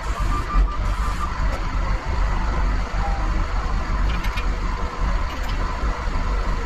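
CAT 938G wheel loader's diesel engine running steadily, heard from inside the cab.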